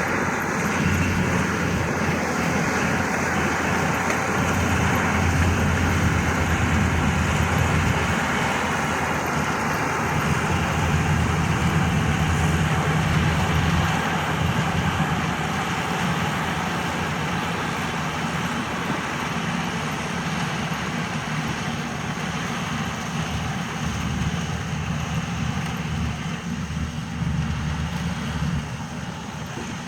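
Engine of a modern rice machine running steadily under load, an even low drone with a dense mechanical rush, easing slightly in loudness near the end.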